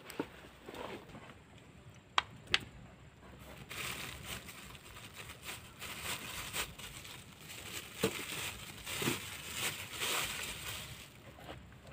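Two sharp clicks, then several seconds of rustling and crinkling handling noise that dies away near the end.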